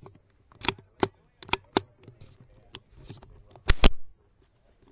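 Tippmann .22 rimfire rifle firing a string of about six sharp shots, four fairly quick ones, then a gap of about two seconds before a last close pair.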